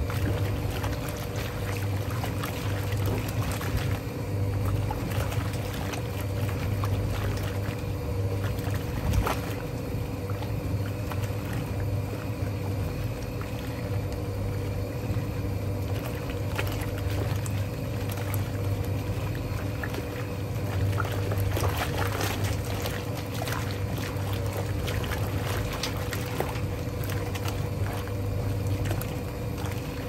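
Vintage Hoovermatic twin tub washing machine running a wash: its motor drives the agitator with a steady low hum while sudsy water and laundry slosh and splash in the tub.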